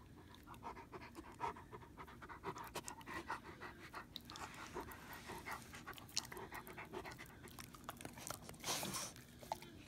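Rottweiler panting quickly while it play-bites and mouths a hand, its mouth making many small clicks. There is one louder breath near the end.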